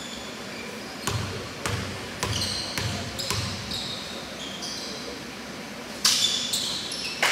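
A basketball being dribbled on a gym floor, bouncing about twice a second, with short high sneaker squeaks on the court. A louder burst of noise comes in about six seconds in.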